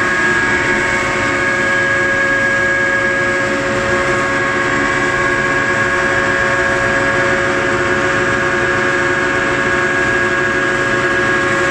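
Pellet mill running: a steady, loud mechanical hum with a constant whine of several held tones and no change in pace.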